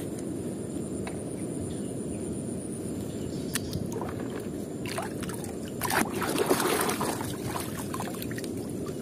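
A hand sloshing and splashing through a tub of muddy water, loudest a little past the middle, over a steady low rumble.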